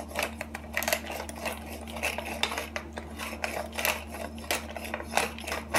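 Hand-twisted pepper mill grinding black peppercorns, a rapid, uneven run of dry clicks and crunches.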